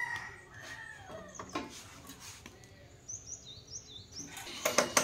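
A rooster's crow tails off at the start, then small birds chirp a few times. Near the end come several sharp clicks and knocks.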